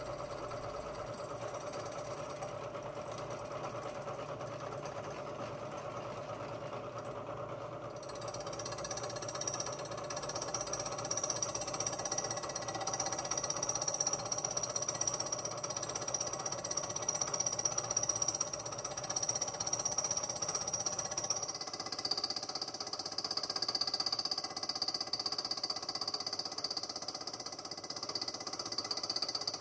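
Milling machine fly-cutting the top face of a hard cast iron exhaust manifold with a Criterion adjustable fly cutter and carbide tool: steady machine running with the repetitive hammering of the interrupted cut and a high whine. It gets louder about eight seconds in, and the whine drops slightly in pitch about two thirds of the way through.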